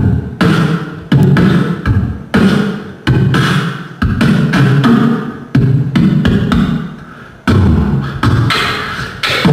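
Human beatboxing into a handheld microphone: heavy, bass-drum-like hits about one or two a second, each trailing off in a decaying tail, with snappier sounds in between.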